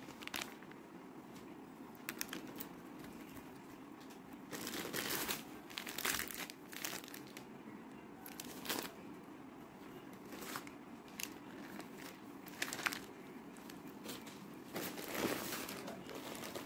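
Plastic food packets crinkling and rustling as they are handled, in irregular bursts with a few louder crackles.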